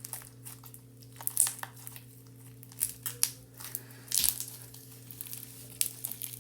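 Foam-bead slime being squeezed and worked by hand: irregular crackling and sharp little pops from the foam beads, coming in clusters.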